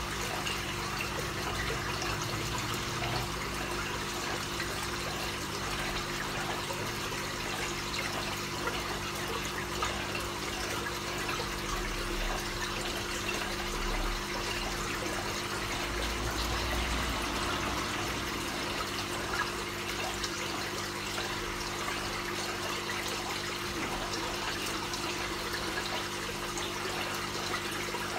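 Aquarium water trickling and splashing steadily, with a low steady hum underneath.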